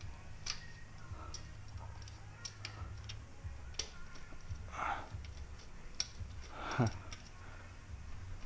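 Scattered small clicks and taps of fiddly hand work on Shimano Di2 wiring, with connectors and a small hook tool knocking against the bike frame. Two short rustling scrapes come a little past the middle.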